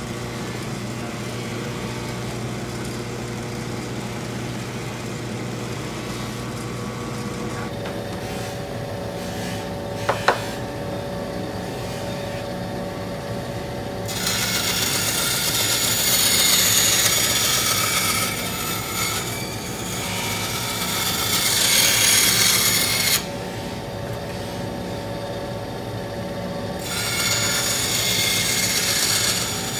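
A Skil benchtop saw cuts a Kydex holster blank to shape. The motor first runs with a steady hum. From about halfway a loud, harsh cutting noise sets in, stops for a few seconds, and starts again near the end.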